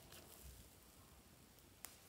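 Very faint squishing and small clicks of slime being stretched and folded by hand, with one sharp click near the end.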